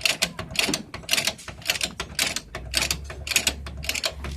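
Rhythmic rasping strokes of a hand tool being worked back and forth, about two a second.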